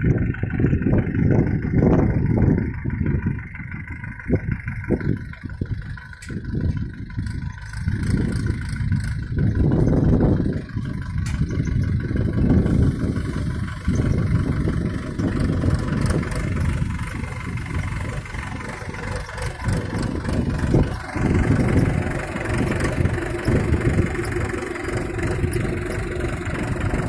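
Mahindra tractor's diesel engine running as the tractor is driven, its sound rising and falling every few seconds.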